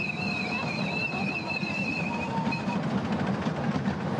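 A 7¼-inch gauge miniature steam train running, heard from its open passenger carriages: a steady rumble of the wheels on the track, with a high, slightly wavering tone over the first two and a half seconds or so.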